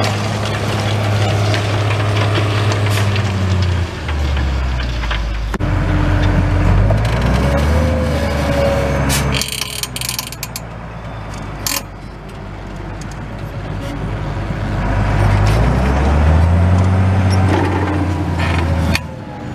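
Case IH 1455 XL tractor's six-cylinder diesel engine working while pulling a mounted reversible plough, its note dropping about four seconds in and climbing again later, with a few clanks from the plough.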